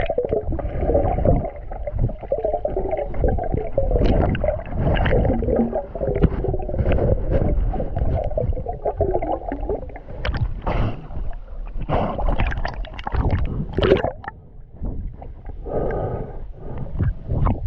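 Muffled water sloshing and gurgling around a swimming spearfisher, broken by many short knocks and splashes; it eases briefly near the end.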